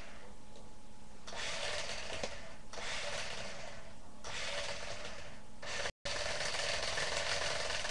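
Toy RC car's electric motor and gears whirring in runs of about a second and a half with short breaks between, then running on without a break after an instant's dropout near the end.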